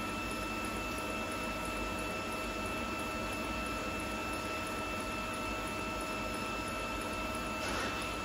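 Pulsed TIG welding arc on stainless steel: a steady electrical hum with a thin high whine over low hiss. A short burst of hiss comes near the end.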